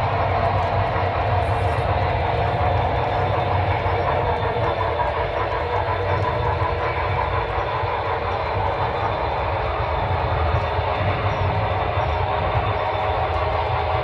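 Running sound of Broadway Limited sound-equipped HO scale model locomotives, with a deep rumble played through a Rolling Thunder low-frequency sound system, as a model freight train rolls along the track. The sound is a steady, dense train rumble.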